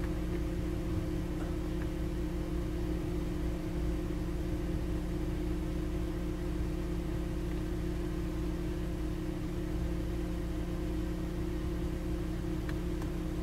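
Car idling, heard from inside the cabin: a steady low hum with a few held tones that does not change.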